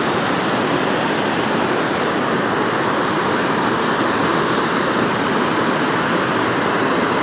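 Steady rush of water pouring through a dam spillway, an even unbroken roar.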